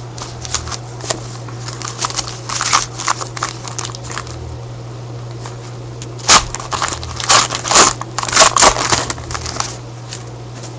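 A trading-card pack wrapper crinkling and tearing as it is opened, with cards being handled, in a run of sharp rustles that is loudest from about six to nine seconds in. A steady low hum runs underneath.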